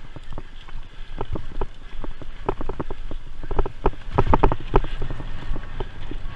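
Cyclocross bike jolting over a rough, stony dirt track: irregular sharp knocks and clatter, thickest about four seconds in, over a low rumble of wind on the microphone.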